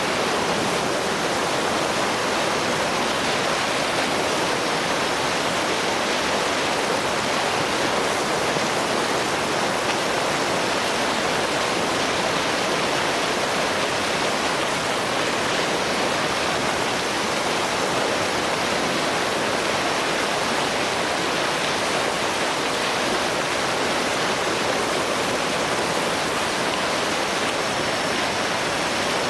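Rapids and waterfall on the River Nile: heavy, fast-running water rushing steadily.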